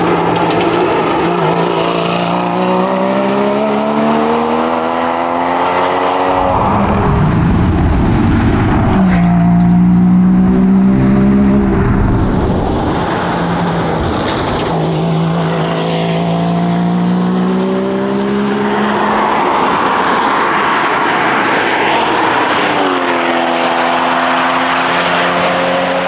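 Porsche Cayman GT4's flat-six engine revving hard under acceleration. The pitch climbs and drops back several times as it shifts up, with bursts of rushing noise as the car sweeps past at speed.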